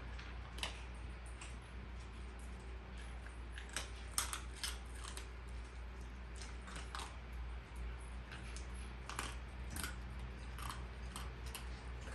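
A dog crunching dry kibble: irregular sharp crunches and clicks, some in quick runs.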